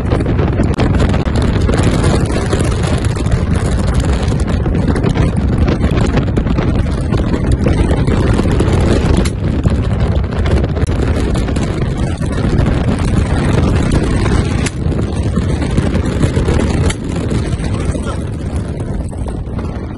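Loud, steady rush of wind and vehicle noise from a car driving fast across rough ground with its window open.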